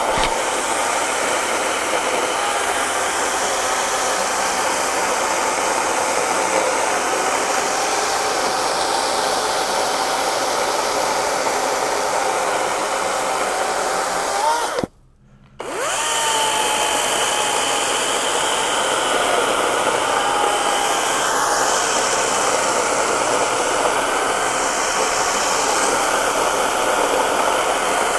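EGO 56-volt brushless battery chainsaw running at full speed, its 16-inch chain cutting through a thick, wet oak log: a steady electric-motor whine under the rasp of the chain in the wood. It cuts out for about half a second halfway through, then carries on.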